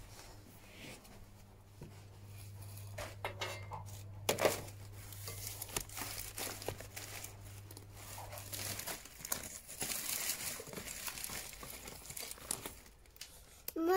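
Packaging crinkling and rustling, with scattered light knocks and clicks from handling things on a table. A low steady hum runs under it and stops about two-thirds of the way through.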